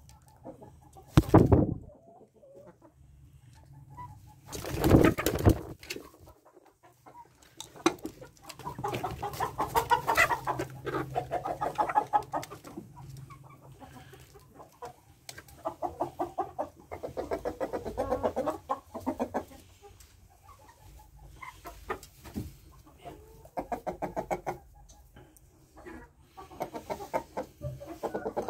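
Chickens clucking in repeated bouts of rapid clucks, a few seconds apart. Two loud, sudden noises come in the first six seconds.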